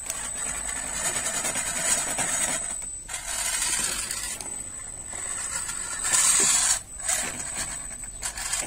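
3D-printed RC rock crawler driven by a brushless motor through a 3D-printed gearbox and portal axles, running with a thin high whine while its tyres and chassis scrape over wire mesh. The drive cuts out briefly about three seconds in and again just before seven seconds, and is loudest just after six seconds.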